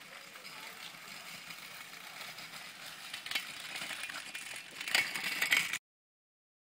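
Small three-wheeled kick scooter's plastic wheels rolling and hissing over wet tarmac, growing louder as it comes closer, with a few rattling clacks. The sound cuts off suddenly near the end.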